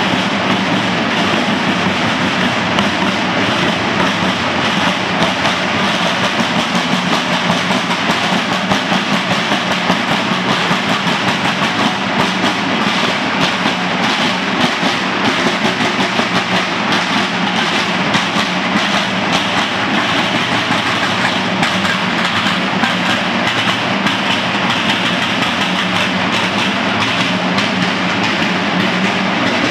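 A group of marching drummers beating rope-tensioned Sienese parade side drums in a fast, steady cadence that runs on without a break.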